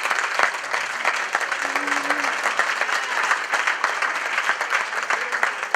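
A congregation applauding, many hands clapping together.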